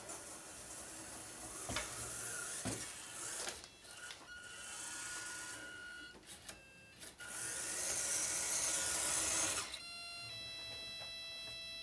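Small electric motor and newly fitted drivetrain of a 1:14 RC Land Rover whirring in several spurts as the model climbs and drives, with two sharp knocks in the first few seconds. Near the end the whirr stops and a steady high-pitched whine of several tones takes over.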